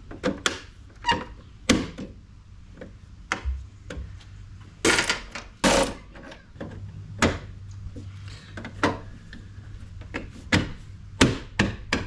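Scattered clicks, taps and knocks of hand work as an LED tail light assembly is pressed and fastened into a vehicle's rear corner, with two louder rasping bursts about five and six seconds in.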